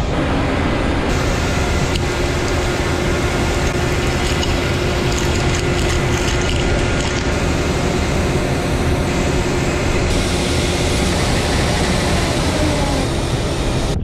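Claas Lexion 6700 combine harvester running close by while unloading, its spout pouring barley into a tractor trailer: a steady, loud mix of machinery noise and falling grain.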